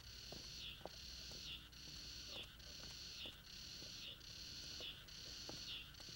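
Cicada buzzing in regular pulses, a little more than one a second, each pulse ending in a short downward slur, with faint scattered taps underneath.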